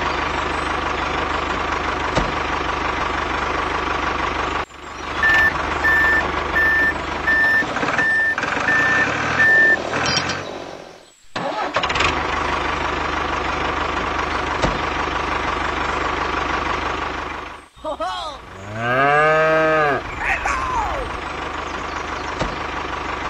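Tractor engine running steadily, broken off by several sudden cuts. Reversing beeps sound about eight times, evenly spaced, starting about five seconds in. Toward the end a cow moos once, a long call that rises and then falls.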